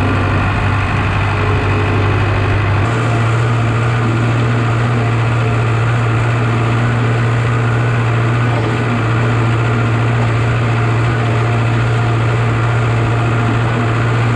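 An engine running steadily at constant speed, with a strong low hum; the sound shifts abruptly about three seconds in and then carries on unchanged.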